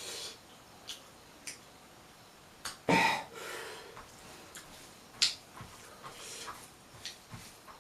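Close-up eating sounds: chewing pork, with scattered short mouth clicks and smacks and one louder, longer mouth noise about three seconds in.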